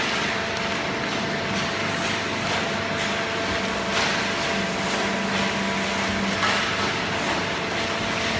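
Hydraulic waste paper baler running: steady machine noise with a constant hum and a few light knocks. A deeper hum comes up for a couple of seconds past the middle.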